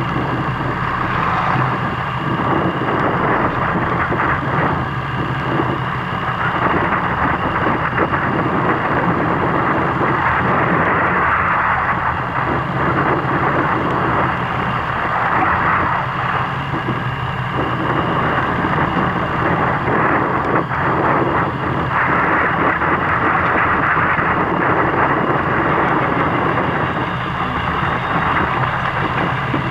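Fishing boat's engine running steadily, with a constant rushing noise over it.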